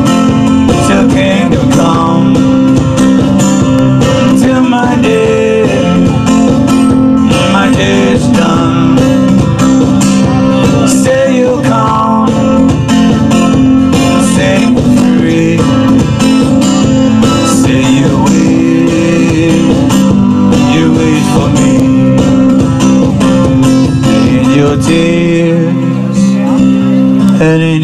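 One-man band playing an instrumental break: strummed guitar over a steady percussive beat, played through speakers. Near the end the low beat drops out while the guitar carries on.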